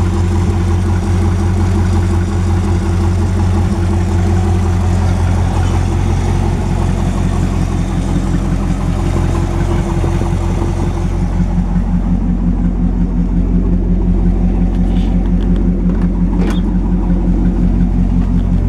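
A 1959 Edsel Ranger's 292 V8 idling steadily as it warms up, an engine with a known exhaust leak. About two-thirds of the way through, the sound turns duller and deeper as the high hiss drops away, and a couple of light knocks come near the end.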